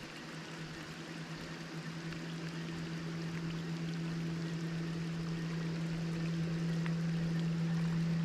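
River water rushing steadily, with a steady low hum underneath that slowly grows louder.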